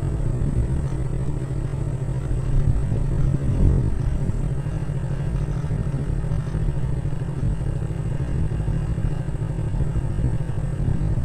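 Steady low rumble and buffeting of a vehicle riding slowly along a narrow lane, with wind on the microphone.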